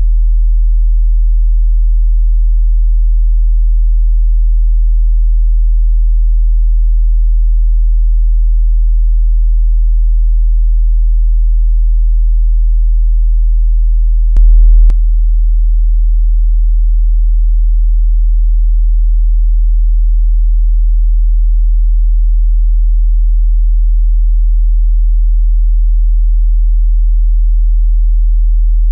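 Emergency-broadcast attention tone: a loud, steady, very deep pure tone held without a break. About halfway through it turns briefly louder and harsher for half a second, then carries on as before.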